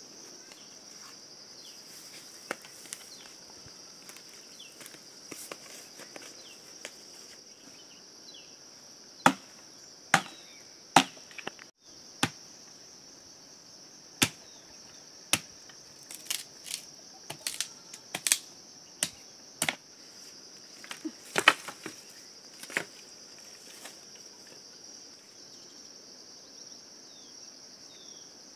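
Dry sticks cracking sharply as they are snapped and pulled from a brush pile for firewood: a dozen or so separate cracks, starting about nine seconds in and stopping a few seconds before the end. Under them runs a steady, high-pitched insect drone.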